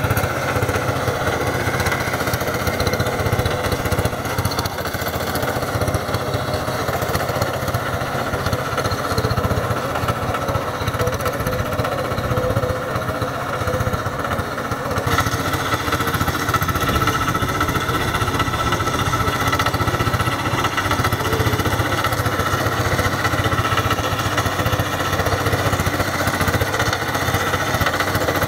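Single-cylinder diesel engine of a Quick Kronos two-wheel hand tractor running steadily under load while its rotary tiller chops through dry, cloddy soil.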